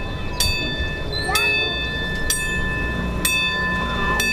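Ice cream truck's chime ringing one struck note about every second, each note ringing on, over the low steady rumble of the truck's engine.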